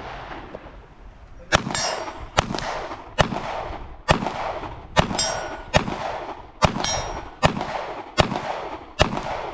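A handgun fires a steady timed string of about ten single shots, roughly one every 0.8 seconds. Each sharp report is followed by a short ringing echo.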